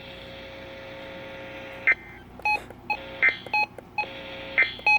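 Weather radio receiver audio: a steady low tone for about two seconds, then a rapid string of short electronic beeps like touch-tone dialing, with the steady tone returning briefly, over constant radio hiss.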